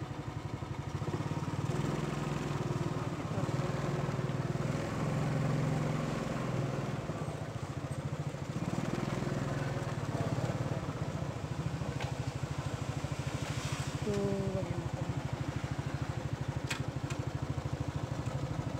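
A motorcycle engine running steadily, a low even hum with a fine rapid pulse.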